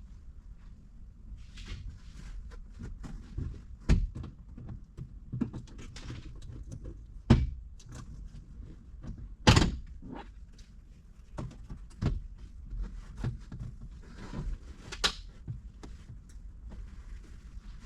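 Hands working a wire into the plastic interior trim of an SUV: scattered clicks, taps and rustles, with two sharper knocks near the middle a couple of seconds apart.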